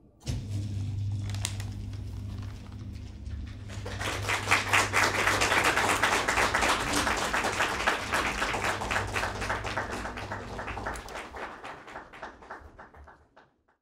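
Audience applause: a few scattered claps at first, swelling into dense clapping about four seconds in, then thinning and fading out near the end, with a low steady hum beneath it.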